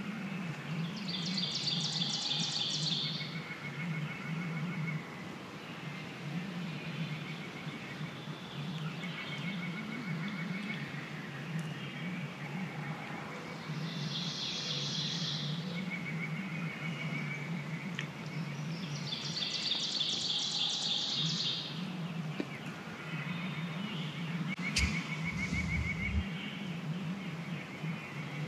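Songbirds singing in spring hardwood woods: three rapid high trills of about two seconds each, with fainter repeated bird calls between them. A brief low thud comes near the end.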